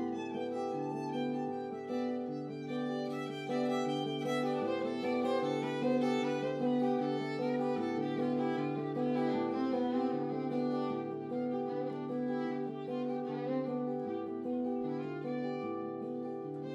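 Instrumental music led by violin: sustained low notes change every second or two beneath a busy layer of quick, repeated short notes.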